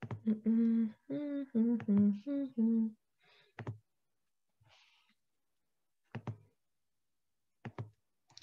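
A woman hums a short tune of several held notes at changing pitch for about three seconds. After that come three or four scattered soft clicks.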